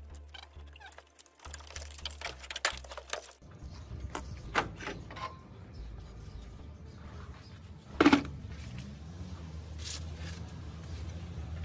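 Scattered clicks and knocks of tools and metal engine parts being handled during a teardown, with one louder knock about eight seconds in, over a low background hum.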